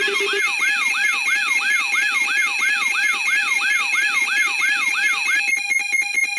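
Layered electronic siren and alarm tones. A siren yelps up and down about three times a second over steady high tones, and a low pulsing tone drops out just after the start. About five and a half seconds in, the yelp stops and a fast pulsing beep takes over.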